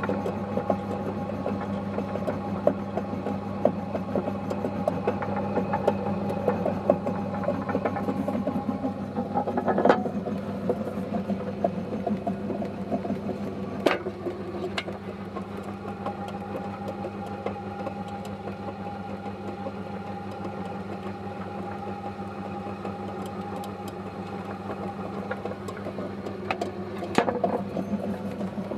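AIHO VC-4 commercial vegetable slicer running steadily, its electric motor humming and its cutting disc spinning. Three sharp knocks stand out: about ten seconds in, about fourteen seconds in, and near the end.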